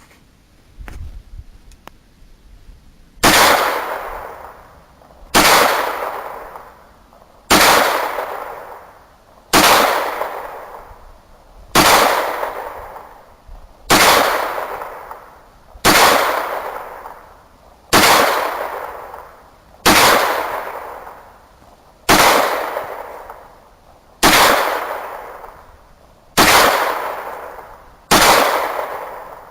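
Taurus 9mm pistol fired about thirteen times at an even pace, a shot roughly every two seconds, each shot followed by a long fading echo. The first shot comes about three seconds in.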